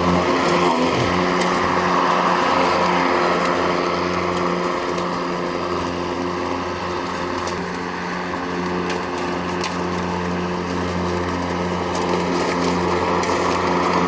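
Mowrator S1 AWD remote-controlled lawn mower running steadily while cutting grass: a steady hum under a dense rushing noise of the blade in the grass. A few sharp ticks come in the second half.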